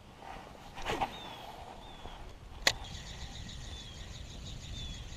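A swish about a second in, then a sharp click as a spinning reel's bail snaps shut. The reel is then cranked slowly: a fine, even ticking with a faint short squeak about once a second.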